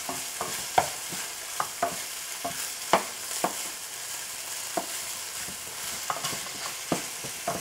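Ground pork sausage and onion sizzling as they fry in a pan, with irregular clicks and scrapes of a spoon stirring and breaking up the meat against the pan.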